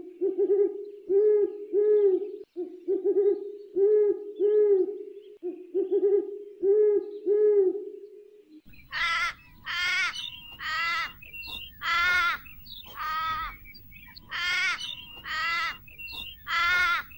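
Owl hooting in pairs, "hoo-hoo", repeated several times over a steady hum. About halfway through this stops and a different animal call takes over: short, bright cries about once a second over a low rumbling noise.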